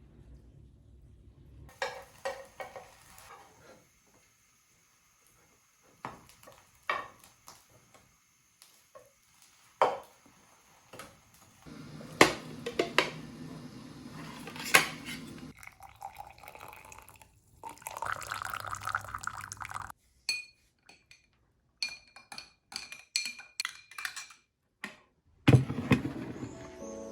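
Kitchen cookware and utensils clattering: a run of separate knocks and clinks of pots, dishes and cutlery, with a couple of steady stretches of noise, high ringing clinks in the later part, and a loud knock near the end.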